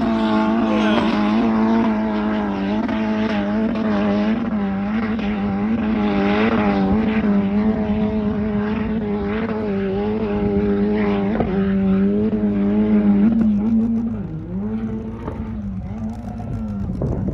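Off-road vehicle engine running at steady high revs, its pitch wavering slightly; in the last few seconds the revs drop and rise several times.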